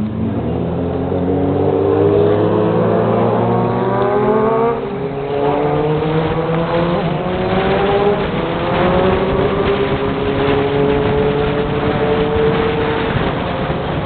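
Three-wheeler's engine accelerating: its pitch rises for about four seconds, drops at a gear change, then climbs again more slowly and levels off.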